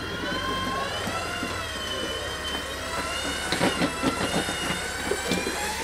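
Electric winch motor whining under load, its pitch wavering slowly as it pulls the Jeep over the rocks, with a few sharp knocks partway through.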